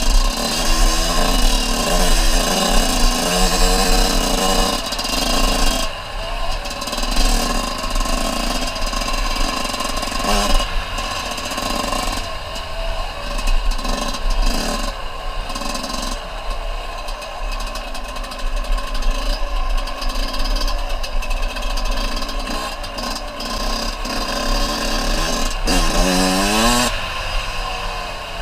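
Small off-road vehicle engine running under throttle, its pitch rising and falling as it revs, with a clear rev-up near the end.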